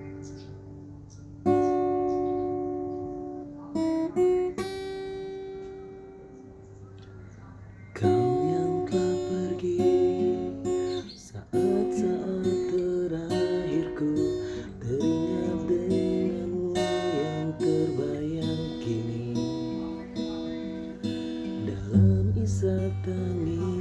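Acoustic guitar intro: a few chords strummed and left to ring, then from about eight seconds in a steady, busier strummed accompaniment.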